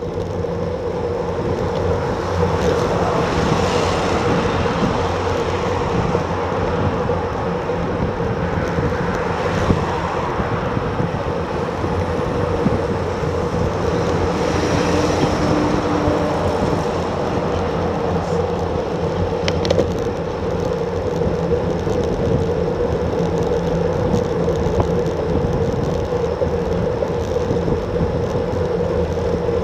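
Wind rushing over the action camera's microphone, with the tyre noise of road bikes riding in a group at about 35 km/h and a steady hum underneath. The noise swells a few times as cars go by.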